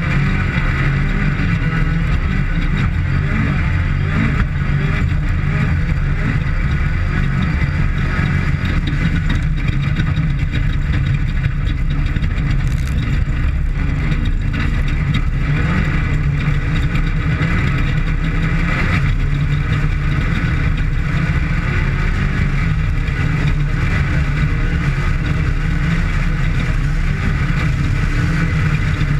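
Off-road race vehicle's engine running steadily under load through a qualifying lap, with a continuous heavy low rumble and rough noise and no let-up.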